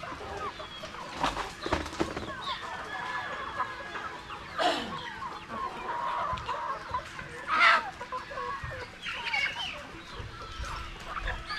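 A flock of Rhode Island Red chickens clucking, with many short overlapping calls and two louder squawks, about five and eight seconds in.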